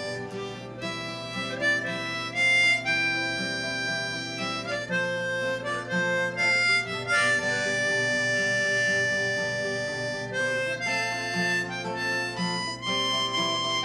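Harmonica playing a tune in held notes, with an acoustic guitar playing along underneath.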